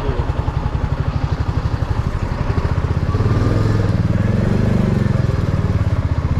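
Motorcycle engine running at low speed with a steady, even pulsing beat. About halfway through, a louder low engine drone swells and then fades as the bike passes close alongside the trucks.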